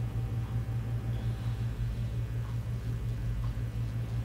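Steady low hum of room tone, with no speech.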